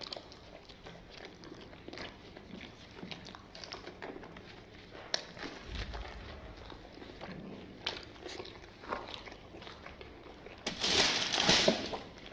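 Eating by hand: quiet chewing, lip smacks and small clicks as pieces of cold, stiff Kashmiri naan are eaten with curry. About eleven seconds in comes a louder tearing noise lasting about a second as a thick naan is pulled apart.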